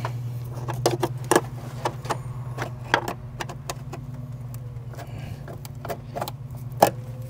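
Irregular sharp plastic clicks and light rattles of engine wiring-harness connectors and clips being worked loose by hand, over a steady low hum.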